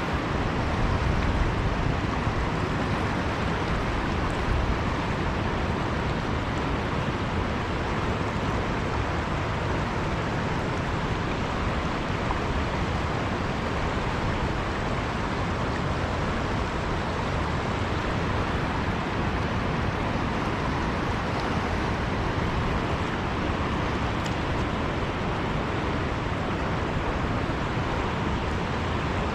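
Steady rushing of river water, an even unbroken noise with no distinct events.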